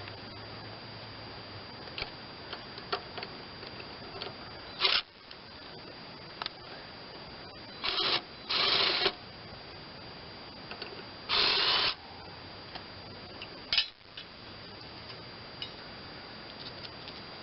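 Tools at work on a mower deck's blade bolts: scattered metallic clicks and knocks, with three short rasping bursts, two close together about eight seconds in and one about eleven seconds in.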